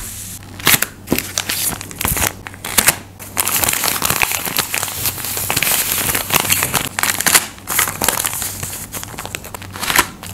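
Paper cut-outs being handled and shuffled by hand: rustling and crinkling paper with many sharp taps and clicks as the pieces are flipped and set down.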